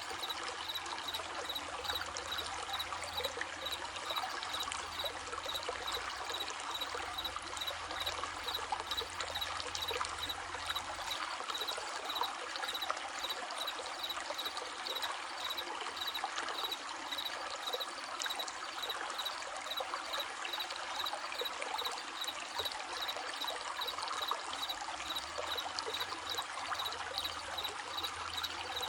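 Running stream babbling and trickling steadily, with crickets chirping in an even, repeating rhythm over the water.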